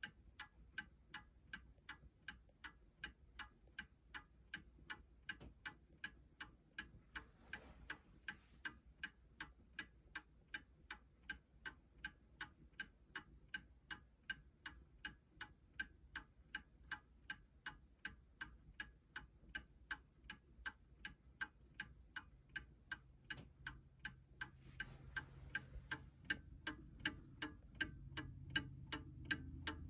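Seth Thomas Sonora chime clock's movement ticking steadily and evenly. Two brief soft rustles are heard, and a faint low hum comes in past the middle.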